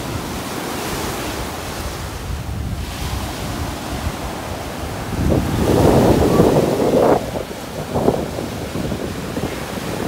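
Sea waves washing onto a sandy beach, with wind rumbling on the microphone; the noise swells louder about halfway through.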